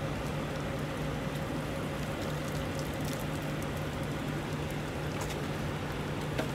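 Steady drone of an idling engine, with a constant low hum and a few faint clicks.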